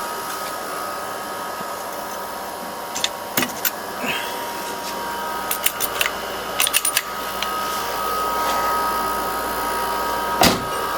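Steady mechanical whir with two thin, high, steady whining tones, broken by scattered light clicks and a single knock near the end.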